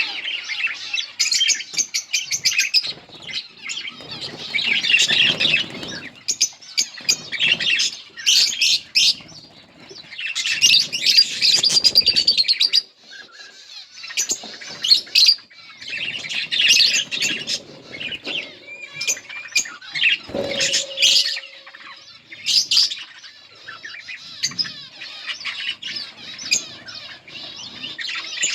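A pair of budgerigars chirping and warbling almost without pause, in quick bursts of high-pitched chatter.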